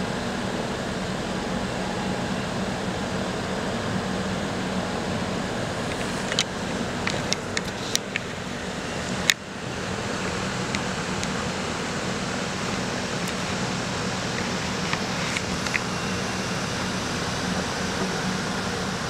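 Steady mechanical hum over a constant background noise. Several short clicks come about six to eight seconds in, and a sharp click about nine seconds in marks a cut in the recording.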